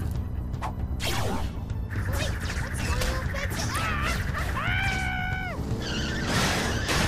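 Cartoon action soundtrack: background music under a run of quick swishes and impact hits, with a high-pitched sound held for about a second, gliding up at its start and down at its end, about four and a half seconds in.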